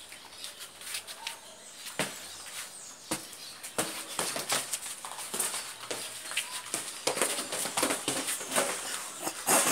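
Scuffle of two men sparring: heavy gi cloth rustling and flapping, feet shuffling, and scattered sharp thuds and slaps of gloved strikes and bodies colliding, getting busier and louder after about four seconds.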